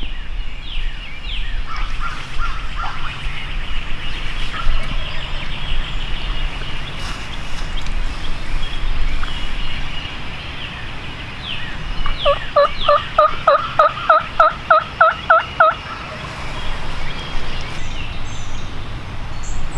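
Turkey yelping: a run of about a dozen evenly spaced yelps, some three or four a second, for about four seconds past the middle, with fainter high chirps in the first few seconds.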